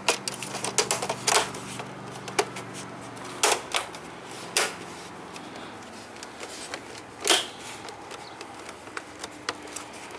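Plastic front bezel of an Acer LCD monitor clicking and knocking as it is pressed onto the back housing and its clips snap into place: a string of irregular sharp clicks, the loudest a few in the middle.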